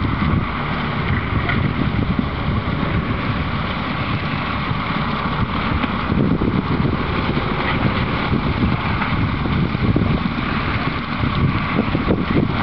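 Seiga reed harvester running steadily as it cuts through a reed bed, with wind buffeting the microphone.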